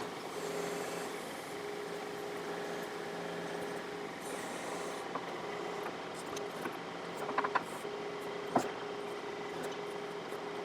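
John Deere 4052R compact tractor's diesel engine running at a steady speed while its 485A backhoe digs out a stump, with a few short knocks from the backhoe work a little past the middle.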